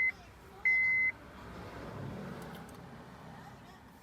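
Steady, high-pitched electronic beeps, about half a second each and about a second apart: one ends right at the start and one sounds about a second in. A faint low hum follows.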